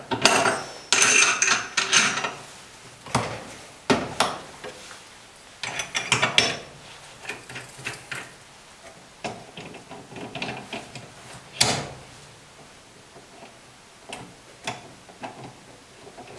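Metal clicks, knocks and scraping from a common rail injector clamping device as its adapter plate is repositioned and its clamps are worked by hand. The sounds come irregularly, with one sharp metallic knock about two-thirds of the way through.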